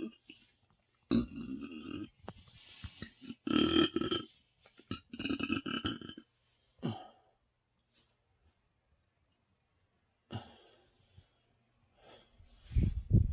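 A man's deep burps from an overstuffed stomach after a very large meal. Three long ones come in the first six seconds with short pauses between them, then a few shorter ones, and another starts near the end.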